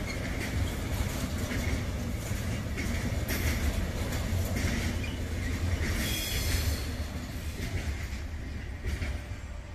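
Intermodal freight train's wagons, loaded with semi-trailers, rolling past with a steady low rumble and wheels clacking over rail joints, with a brief high wheel squeal about six seconds in. The rumble fades as the last wagon goes by.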